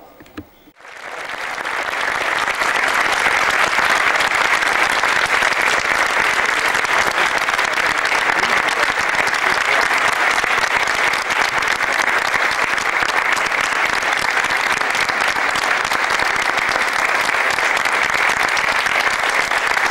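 Crowd applauding. Dense, sustained clapping starts about a second in and swells quickly to a steady level.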